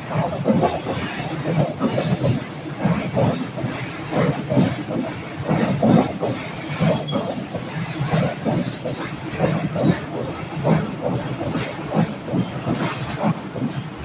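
Freight train passing, its wagon wheels clattering over the rail joints in a run of repeated clacks over a steady rumble.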